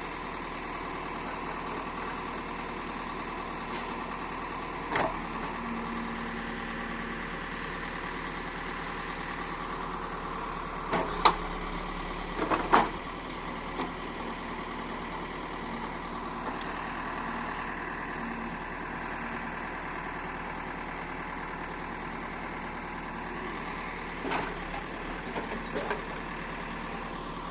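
An engine running steadily at idle, with a few sharp knocks or clanks: a single one about five seconds in, a cluster around eleven to thirteen seconds in, and a few more near the end.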